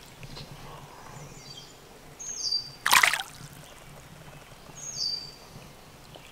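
A single loud splash about three seconds in as a smallmouth bass is released by hand into a shallow stream, over the faint steady run of the water. A bird twice gives a short high whistle that steps down in pitch.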